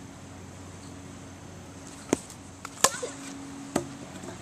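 Sharp knocks of a plastic wiffle ball bat hitting a wiffle ball, three in all about a second apart, the middle one the loudest.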